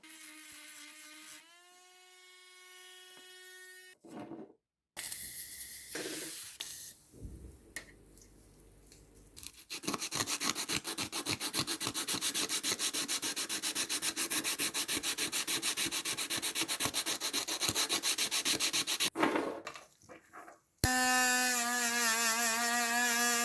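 Sanding or filing the surface of a figure in rapid, even rasping strokes, between stretches of a small electric tool motor whining.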